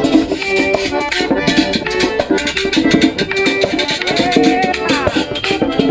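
Live merengue típico trio playing an instrumental passage: accordion melody over a steady beat on a two-headed tambora drum and a scraped metal güira, with a quick downward accordion run near the end.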